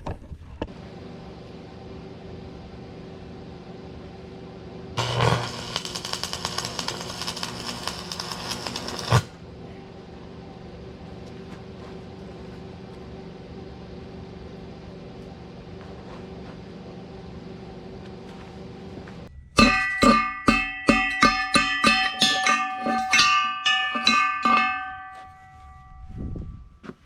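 Arc welder humming steadily while a tack weld is struck: the arc crackles and sizzles for about four seconds. Near the end comes a rapid series of sharp metal strikes, a dozen or more, each leaving a ringing tone.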